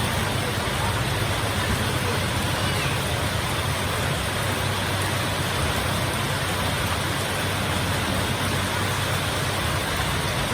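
Heavy rain falling steadily in a storm: a dense, even hiss with a low rumble underneath and no let-up.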